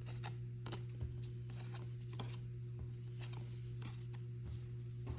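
Pokémon trading cards being handled and slid through the hands, with short papery rustles and clicks, over a steady low electrical hum.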